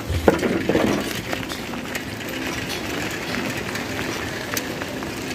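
Bicycle being ridden on a paved road: steady rolling noise with scattered light clinks and rattles from the bike.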